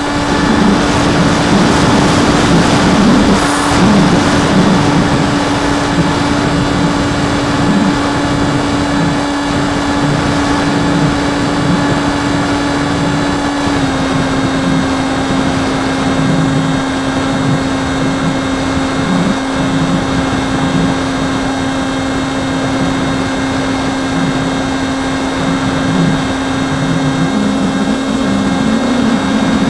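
Model airplane's motor and propeller running at a steady high whine under power, recorded by the onboard camera with wind rushing and buffeting over the airframe. The pitch steps down slightly about halfway through and then holds steady.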